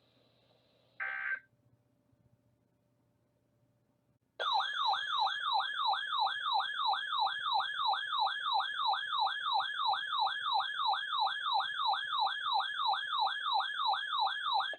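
Electronic emergency-alert warble tone, its pitch sweeping up and down about three times a second for roughly ten seconds, starting about four seconds in and stopping abruptly. Before it there is a brief blip and a faint steady tone.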